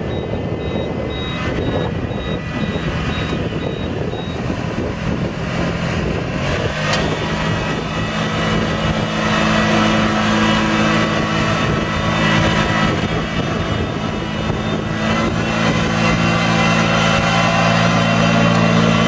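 A rice transplanter's engine running, growing a little louder and settling into a steady drone about eight seconds in. A faint, high pulsing beep is heard in the first few seconds.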